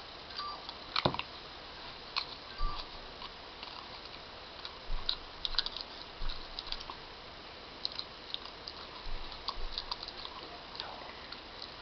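A dog chewing on a straw: soft, irregular clicks and crunches coming in scattered clusters.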